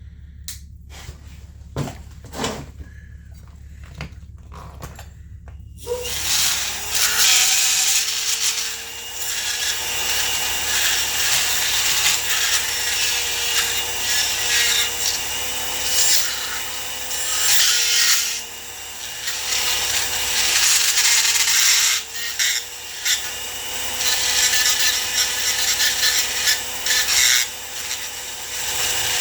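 A few sharp clicks, then about six seconds in a small electric power tool spins up and runs steadily for the rest, a constant motor whine under loud, uneven noise from the tool working.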